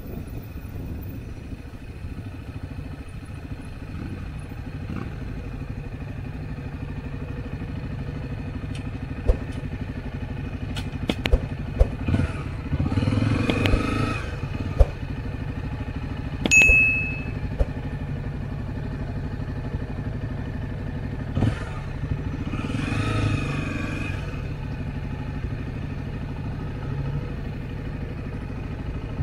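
Motorcycle engine running steadily on the move, with scattered clicks and knocks, two brief louder passages and a short high-pitched tone a little past halfway.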